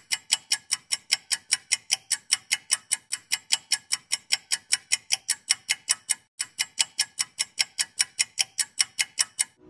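Rapid clock-like ticking sound effect of a countdown intro, about five ticks a second, with a short break a little after six seconds in.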